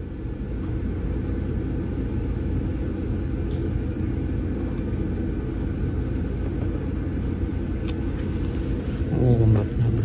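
Steady low rumble aboard a passenger ship at sea, with a short burst of voice about nine seconds in.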